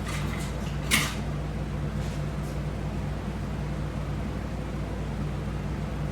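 Steady low hum of a fan or air conditioner in a small room, with one sharp click about a second in and a few fainter clicks.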